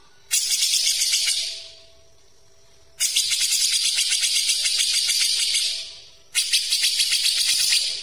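Grey-cheeked bulbul (cucak jenggot) giving fast, tight, high-pitched rattling chatter in three bursts: about a second long, then nearly three seconds, then about a second and a half.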